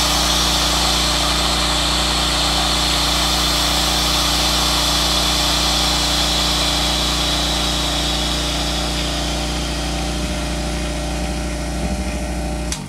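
Air hissing into a vacuum chamber through its opened drain valve, releasing the vacuum so the Mylar bags inside collapse onto their contents, over the steady hum of a running Robinair vacuum pump. Both stop abruptly near the end.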